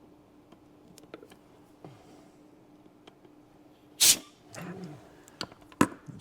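A short, sharp puff of air about four seconds in, blowing molten solder off a circuit board while desoldering, followed by a brief low voiced sound and a few small clicks of handling the board. A faint steady hum runs underneath.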